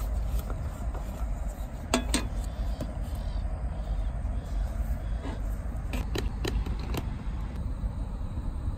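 Light clinks and taps of a plastic cup and a glass bottle against a small stainless steel camping cup: a pair about two seconds in, then several more later on. Under them runs a low steady rumble.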